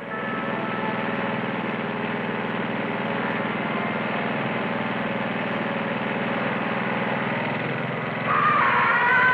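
A small petrol lawn mower engine running steadily. Near the end a louder wavering high tone comes in on top of it.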